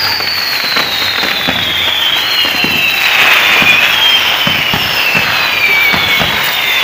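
Fireworks of a torito, a bull-shaped pyrotechnic frame, going off: several long whistles slide slowly down in pitch and overlap, over a hiss of sparks, with frequent sharp pops and crackles.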